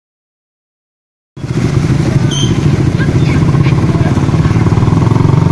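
Silence for about the first second and a half, then a small engine starts being heard, running steadily and loudly close by, with one brief click about a second later.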